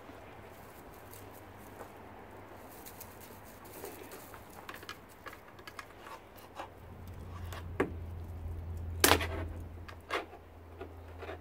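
A stainless steel dishwasher part handled and pried apart by hand with a screwdriver: scattered small clicks and metal taps, then a few sharper knocks in the last few seconds, the loudest about nine seconds in.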